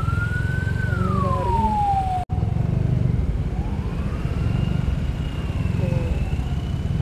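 An emergency vehicle siren wailing in slow rising and falling sweeps, over a loud, steady rumble of wind and motorcycle riding noise. The sound cuts out for an instant a little after two seconds in.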